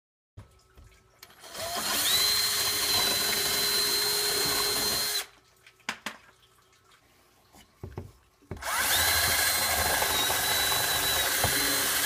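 Black & Decker cordless drill run twice for about four seconds each, spinning up quickly to a steady whine while boring holes up through the layout's wooden cross members. A few light clicks fall between the two runs.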